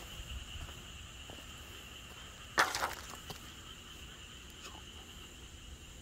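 Night insects, likely crickets, trilling steadily in two high, unbroken bands. About two and a half seconds in comes one brief scrape or rustle, the loudest moment.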